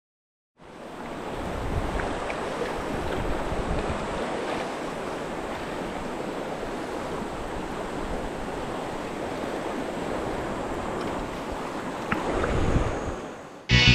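Fast, shallow river current rushing and splashing close around an action camera held at the water's surface, with wind noise on the microphone. The water swells louder briefly near the end, just before music cuts in.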